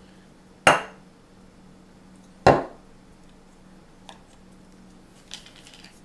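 Two sharp metallic clanks, about two seconds apart, each ringing briefly, as the aluminum bottle and tin-can parts of a homemade alcohol-stove kit are handled and knocked together. A few faint clicks follow near the end.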